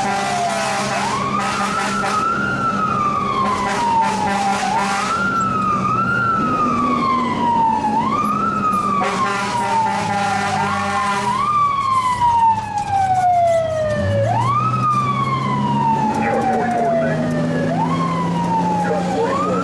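A fire truck's siren heard from inside the cab, sweeping up quickly and sliding down slowly, over and over at uneven intervals, with the truck's engine running underneath.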